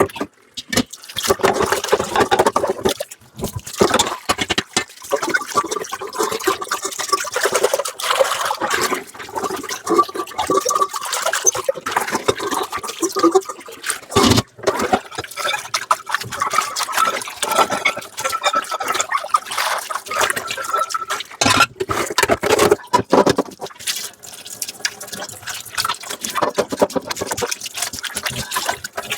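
Dishes being washed by hand under a running tap: water running and splashing, with frequent clinks and knocks of dishes and utensils.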